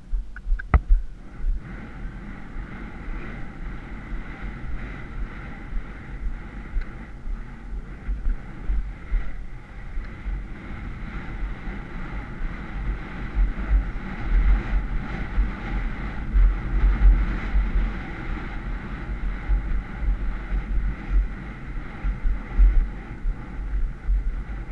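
Wind rushing and buffeting over a helmet camera's microphone on a galloping horse: a steady rough rush with low, uneven thumping, a little stronger in the second half.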